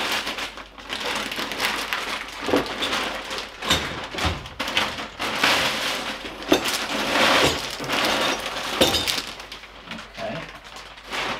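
Plastic wrapping crinkling and rustling as a car strut bar is unpacked by hand, with a few sharp knocks in between.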